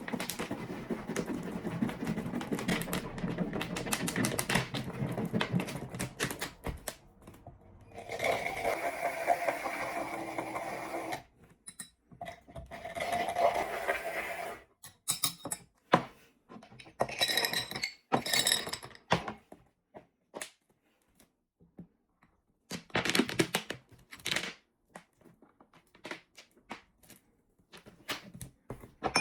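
Kitchen food-preparation sounds: a run of rapid clicking taps for the first several seconds, then bouts of scraping or rustling and scattered sharp knocks with quiet gaps between.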